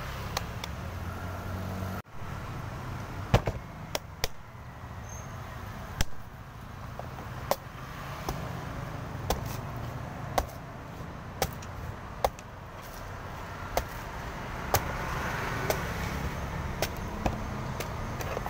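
A steel cleaver chopping into the husk of a young green coconut, one sharp chop about every second, starting a few seconds in. Steady traffic noise runs underneath.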